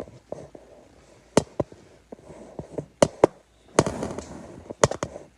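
Sharp knocks and clatter of hard household objects being handled and set down, about eight clicks in all, some in quick pairs, with a brief rustle around four seconds in.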